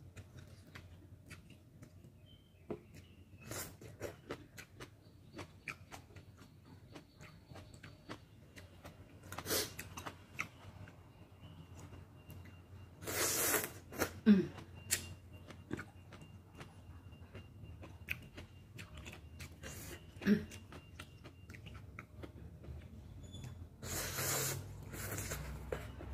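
Eating instant kimchi ramen: wet chewing and lip-smacking clicks throughout, broken by three longer slurps of noodles, about a third of the way in, around the middle, and near the end.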